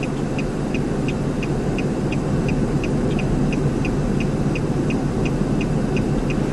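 Steady low rumble of a running vehicle and wind, with a quick, regular high-pitched tick about three times a second.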